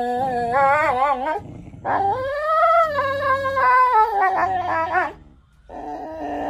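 A husky howling and whining with a toy in its jaws during a tug-of-war, its vocal protest over the toy. First comes a warbling call, then a long drawn-out one from about two seconds in, a short break, and another call starting near the end.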